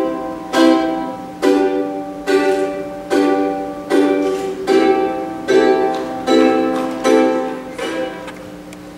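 A string instrument strummed in single slow chords, about one every 0.8 seconds, each left to ring and die away. The strumming stops shortly before the end.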